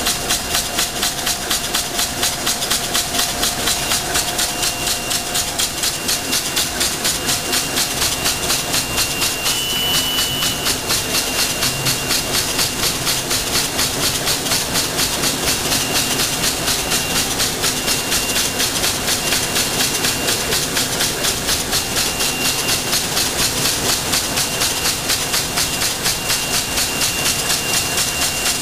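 CT-9914 left-handed wicketer, a plastic bag-making machine, running steadily with clear film feeding through its rollers. Its cycling mechanism makes a rapid, even, repeating clatter.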